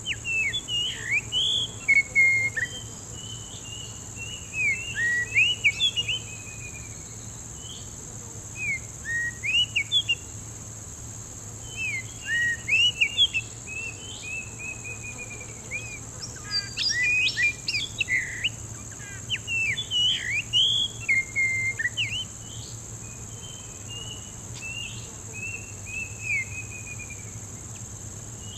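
Oriental magpie-robin song: short, varied whistled phrases of sliding notes, repeated with brief pauses and busiest past the middle. A steady high insect drone runs underneath.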